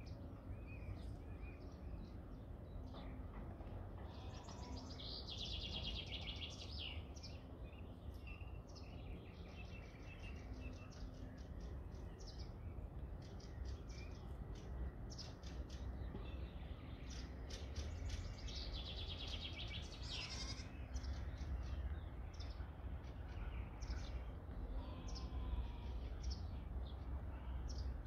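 Songbirds chirping, with two longer rapid trills, over a steady low rumble; a goat bleats faintly a couple of times.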